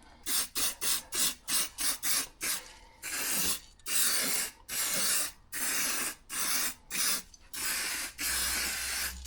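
Spray can hissing in repeated bursts as exhaust header wrap is coated: quick short bursts, about three a second, for the first few seconds, then longer bursts of around a second each.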